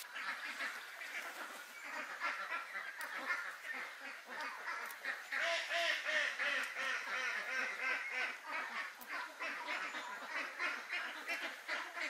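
A flock of farmyard birds calling: many short, repeated calls overlapping in a steady chatter, loudest around the middle.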